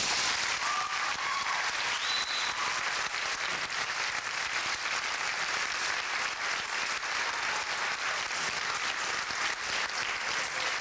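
Audience applauding, a dense steady clapping from a large crowd at the close of a stage performance.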